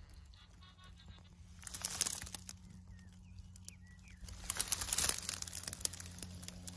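Rustling, crinkling noise that swells twice, about two seconds in and again around five seconds, with small crackles, over a faint steady low hum.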